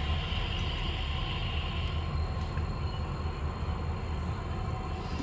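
Freight train going by with a steady deep rumble. A higher hiss over it fades out about two seconds in.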